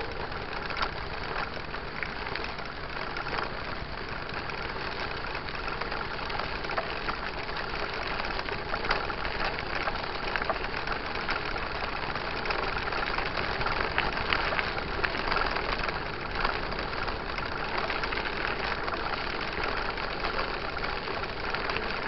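Steady rolling noise of a mountain bike on a dirt road, picked up by a camera riding on the bike, with small clicks and rattles scattered through it.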